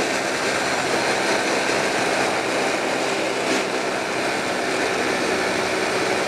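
Honda C90's small 90cc single-cylinder engine running steadily at high revs as the bike cruises at about 45 mph, mixed with wind rushing over the microphone.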